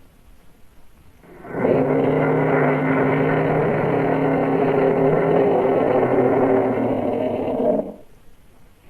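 A T-rex roar sound effect: one long, rough, steady roar of about six seconds. It starts about a second and a half in and cuts off abruptly.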